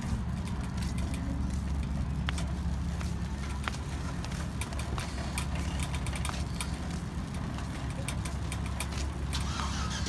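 Metal shopping cart rolling over asphalt: a steady rumble from the wheels with irregular rattling clicks throughout.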